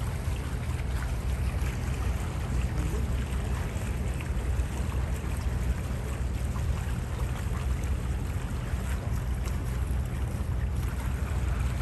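Steady wind rumbling on the microphone, with water washing past the hulls of a catamaran under way.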